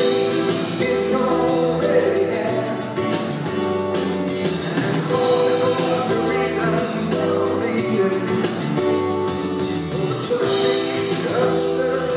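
A live soft-rock band plays a song: a man sings lead over strummed acoustic guitars and a steady drum kit beat.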